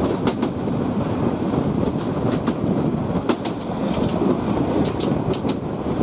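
Bangladesh Railway train running on the track: a steady rumble with sharp clicks from the wheels over the rail joints, coming in pairs and small clusters every second or so.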